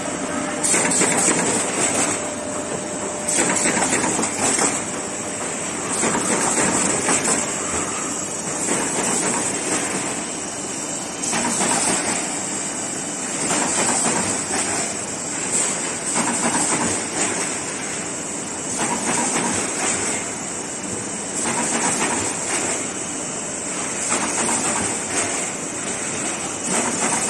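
Corrugated-cardboard partition assembly machine running at production speed: a steady mechanical clatter of conveyors and rollers handling board, swelling regularly every couple of seconds.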